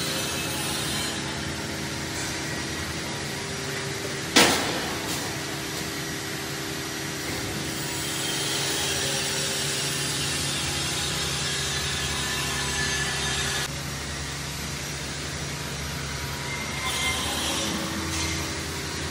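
Belt conveyor of a TV assembly line running, carrying a pallet board along its belts with a steady mechanical whir and rub. About four seconds in, one sharp knock is the loudest sound, and the noise changes and drops a little about two-thirds of the way through.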